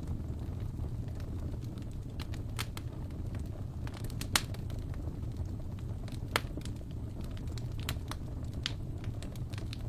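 Wood fire burning in an open fireplace: a steady low rumble of flames with scattered sharp crackles and pops, the loudest pop about four seconds in.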